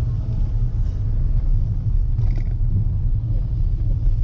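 Steady low rumble of road and engine noise heard inside a moving Maruti Brezza's cabin.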